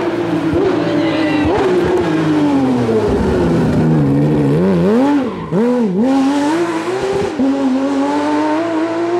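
Porsche 911 GT3 rally car's flat-six engine at full race pace: the engine note falls under braking, swings quickly up and down a few times through a corner, then climbs steadily as the car accelerates away.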